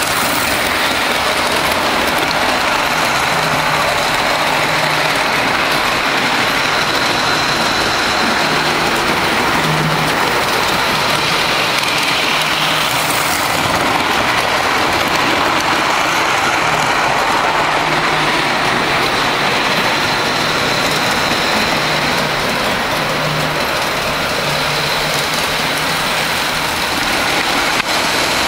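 G gauge model train running on the track close by: a steady rolling noise of wheels on rail and the motor, with a faint high whine throughout.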